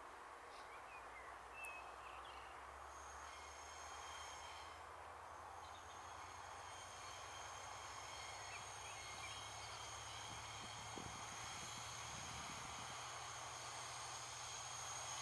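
Loaded container freight train of pocket wagons running away on a curve: a low steady rumble, with a faint high-pitched wheel squeal setting in about three seconds in and holding on.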